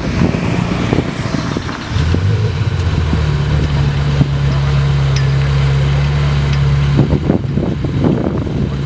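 Ferrari F355's V8 idling with a steady low burble; the sound turns rougher near the end.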